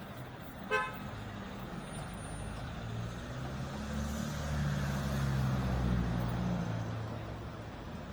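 A motor vehicle's engine hum swells over a few seconds, is loudest around the middle, then fades. A short, sharp beep sounds just under a second in.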